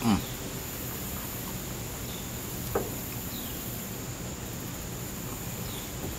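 Summer outdoor ambience: a steady, high insect drone with faint high chirps over it. A brief louder sound falling in pitch right at the start, and a single short click a little before the middle.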